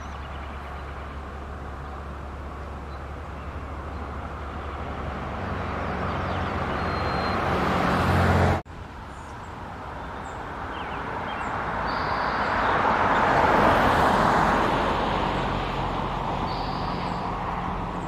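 Road traffic: the rush of passing vehicles swelling over several seconds and cutting off suddenly about eight and a half seconds in, then swelling again to a peak a few seconds later and fading, over a low steady engine hum.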